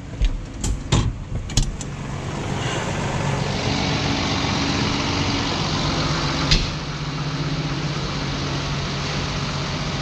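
New Holland tractor's diesel engine idling steadily. A few sharp knocks come in the first two seconds, and another about six and a half seconds in.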